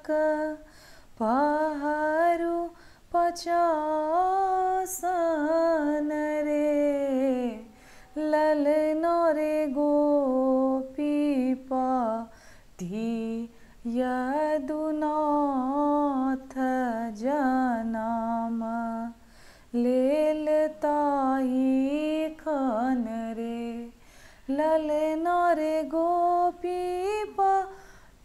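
A woman singing a Maithili sohar (a traditional birth song) unaccompanied, in long drawn-out phrases with sliding, ornamented notes and short breaths between them.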